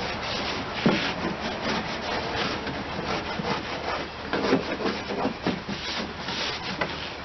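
Irregular rubbing and scraping on hard plastic from hand work on the kayak deck and hatch parts, with a few sharp knocks; the loudest comes about a second in.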